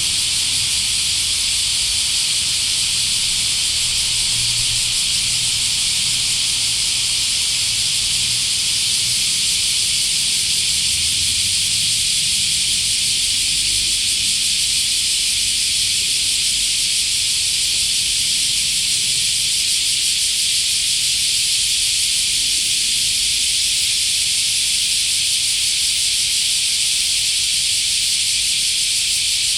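Dense, steady chorus of summer cicadas: a continuous high shrill hiss with no pauses, under a faint low rumble.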